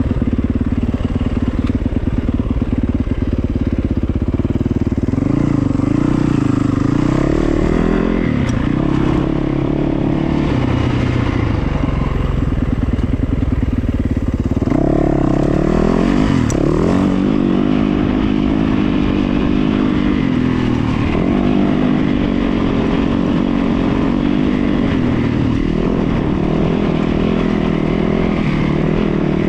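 An engine running continuously, its pitch rising and falling as the revs change, with a sharp rise and fall about fifteen seconds in.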